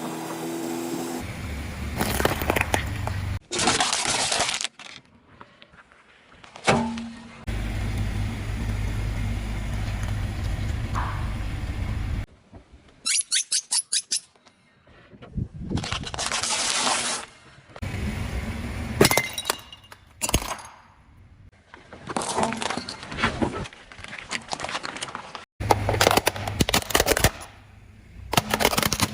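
Car tyres rolling over and crushing objects: a series of crunching, cracking and breaking sounds, some over a low rumble, cut abruptly from one crush to the next.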